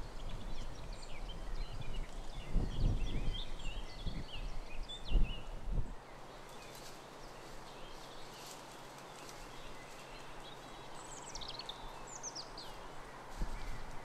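Ponies grazing close by: uneven crunching and tearing of grass and bracken, with small birds singing. About six seconds in the sound drops to a quieter woodland background with birdsong, including a few falling calls, and grows louder again near the end.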